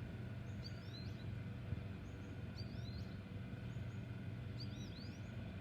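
Outdoor ambience: a songbird repeating a short, looping chirped phrase about every two seconds over a steady low background hum.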